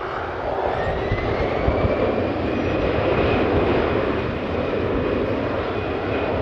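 Airbus A319-112 jet airliner on its landing roll, its CFM56 engines giving a steady rushing noise. A whine climbs in pitch from about a second in, then holds, as the sound grows louder.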